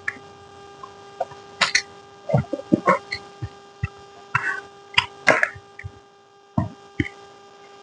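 Eating sounds close to the microphone: irregular mouth clicks and smacks of chewing, a dozen or so short sounds, over a faint steady electrical hum.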